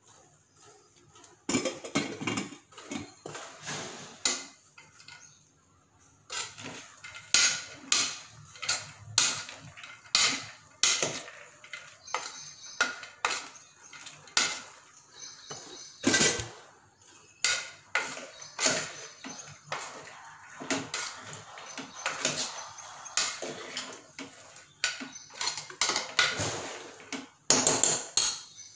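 A metal spoon clinking and scraping against the inside of an aluminium pressure cooker pan as food is stirred, in quick irregular strokes, with a short pause about five seconds in.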